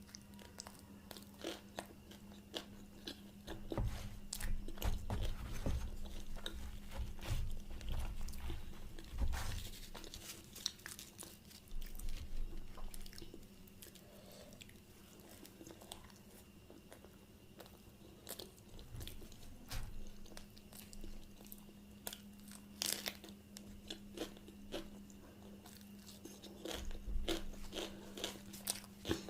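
A person chewing and biting food close to the microphone, with wet mouth clicks and crunches coming in clusters and short lulls between them. A steady low hum runs underneath.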